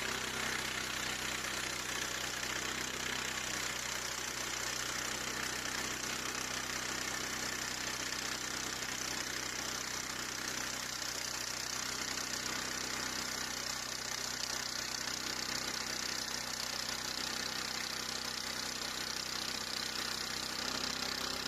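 An engine idling steadily, an even, unchanging hum.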